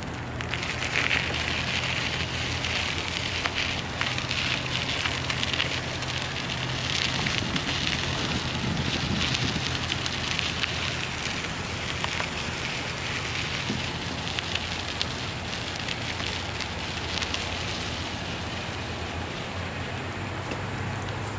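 Bicycle tyres rolling over a sandy gravel road, a steady crackling crunch with wind rumble underneath.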